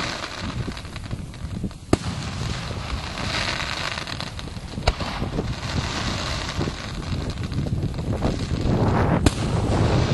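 Aerial fireworks display: three sharp bangs, about 2, 5 and 9 seconds in, over a continuous low rumble of bursting shells, with spells of hissing crackle from crackling shells in between.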